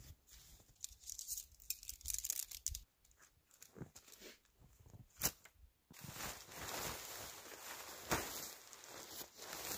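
Nylon tent fabric rustling and crinkling as a tent is packed up and lifted off its groundsheet, with a sharp click about five seconds in and a longer stretch of heavy rustling from about six seconds on.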